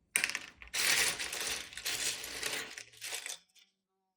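Loose plastic LEGO bricks clattering as a hand sifts through a pile of them: a dense rattle of many small clicks that stops about three and a half seconds in.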